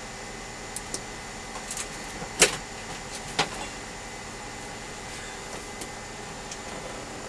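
Tools and small objects being handled and set down while searching for a tool: a few light clicks and knocks, the loudest about two and a half seconds in and another about a second later, over a faint steady hum.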